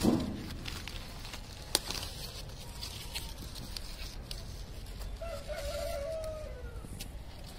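Mustard leaves handled and picked by hand: rustling and a few sharp clicks and snaps, the loudest about two seconds in. A rooster crows once, about five seconds in, wavering and then falling in pitch at the end.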